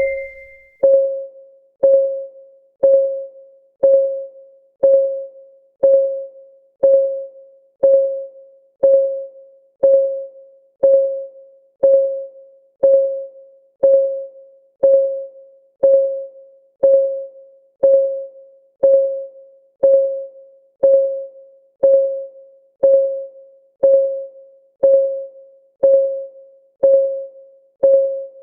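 Countdown timer's clock-tick sound effect: short, pitched ticks, one each second, evenly spaced, each fading quickly.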